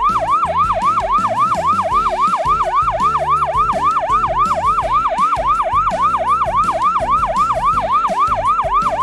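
Fire truck siren in fast yelp mode, wailing up in pitch about four times a second with a low rumble underneath.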